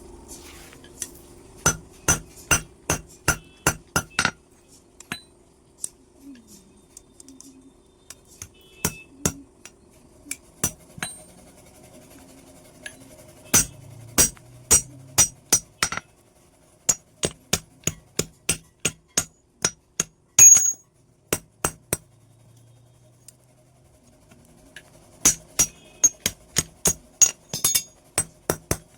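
A hammer striking metal in runs of quick ringing blows, about two to three a second, with pauses between runs.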